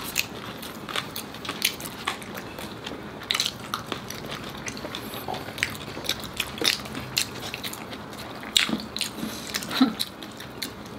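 Close-up crunching and chewing of crispy air-fried lechon kawali, the crackling pork skin giving sharp, irregular crunches.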